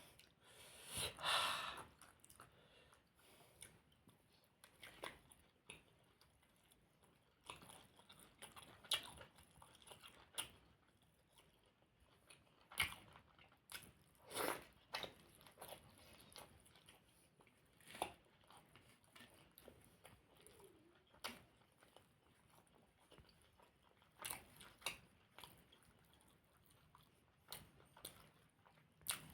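Close-up eating sounds of puri with potato curry: scattered short, sharp bites and chewing sounds every second or few, some louder than others, over a quiet background.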